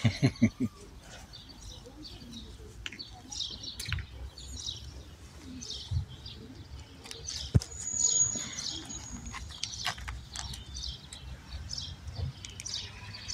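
Small songbirds chirping repeatedly with short high calls, one held whistle about eight seconds in. Over them come a few short low thumps at the start and scattered clicks and rustles as a kitten climbs over the clothing near the microphone.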